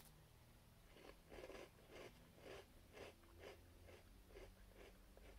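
Faint crunchy chewing of a chocolate-filled sandwich biscuit, about two chews a second, starting about a second in.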